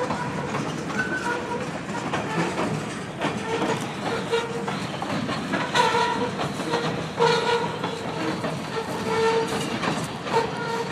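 Freight train cars rolling past, wheels clattering over the rails, with short squealing tones recurring every second or two.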